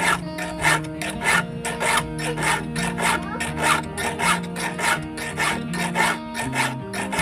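Hand file rasping across a chainsaw chain's cutters in a steady rhythm of strokes, about one every half second or so, as the chain is sharpened.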